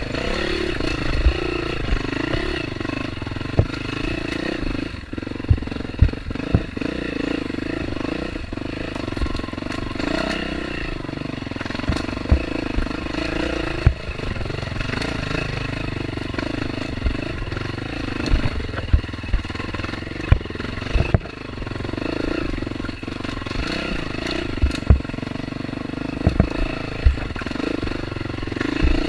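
Off-road dirt bike engine running on a trail, its pitch rising and falling with the throttle, with frequent sharp knocks and clatter from the bike over rough ground.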